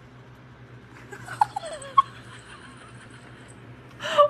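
Mostly quiet, with a few faint short sounds and a soft falling sound about a second and a half in; near the end a person starts giggling.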